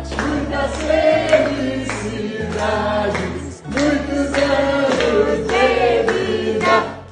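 Many voices singing together over music.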